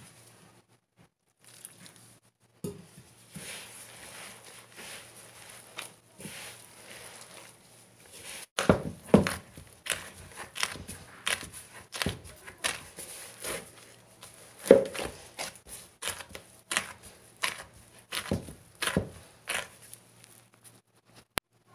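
A gloved hand mixing flour and chopped fenugreek leaves into dough in a plastic bowl. It starts as a soft, steady rustling, then from about nine seconds in becomes a run of sharp strokes, roughly one or two a second, as the dough is pressed and kneaded against the bowl.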